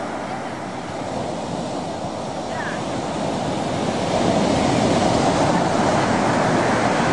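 Ocean surf breaking and washing up the shore, a steady rush of noise that swells louder a little past halfway through.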